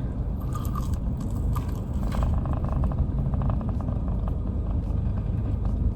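Steady low rumble of a car heard from inside the cabin, with faint light crackles scattered through it.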